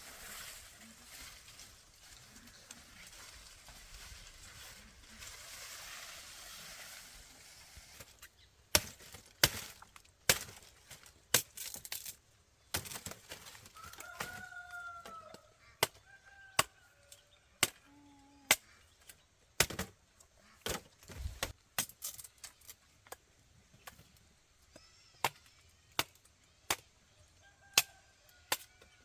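A soft rushing haze, then a string of sharp knocks about once a second, starting around nine seconds in, with a few short calls from domestic fowl between them.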